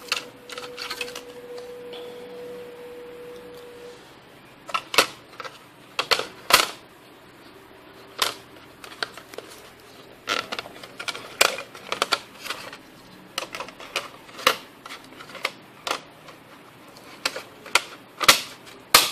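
Irregular clicks and knocks of hands working on an LED TV's main board, pressing plastic wire-harness connectors into their sockets. A faint steady tone sounds for the first few seconds.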